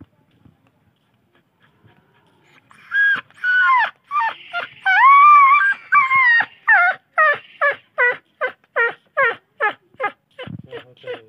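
Injured dog whining and yelping in pain as its maggot-infested wound is worked on. A couple of seconds in come a few long, wavering cries, then a quick run of short yelps, about two or three a second.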